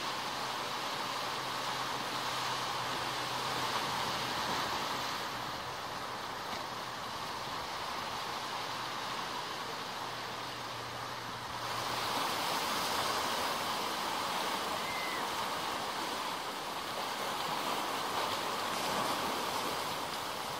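Sea swell washing and swirling against a rocky outcrop, a steady rush of surf that grows louder and brighter about halfway through.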